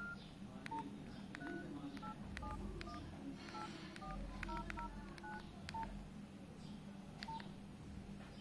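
Short electronic keypad-style beeps at several different pitches, sounding irregularly a few times a second, like the key tones of a phone being tapped, with small clicks among them over a steady low hum.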